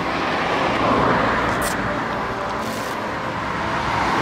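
A car on the move: steady rushing road and wind noise that swells and eases.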